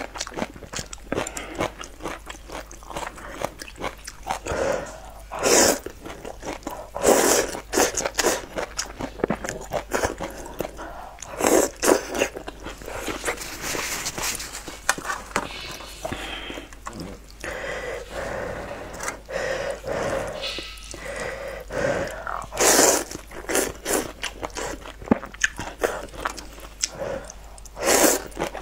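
Instant noodles in spicy soup being eaten with chopsticks: several loud slurps, with wet chewing and biting between them.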